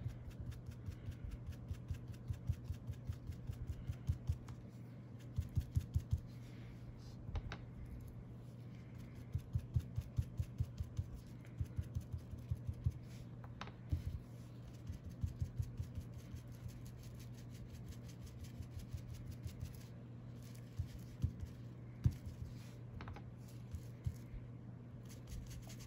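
Foam ink blending tool dabbing and rubbing distress ink onto paper through a cloud mask, in runs of quick soft taps and scuffs with short pauses between, and a few sharper clicks. A steady low hum runs underneath.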